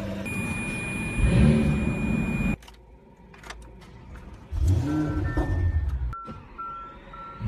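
Sports-car engines in a run of cold start-ups: a Jaguar engine running and blipped once about a second in, cut off abruptly; then an Audi RS7's twin-turbo V8 catching and flaring up before settling toward idle. A few short electronic dashboard chimes near the end.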